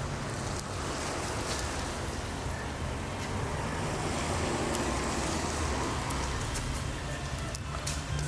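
Steady low rumble and hiss of a vehicle, with a few faint clicks.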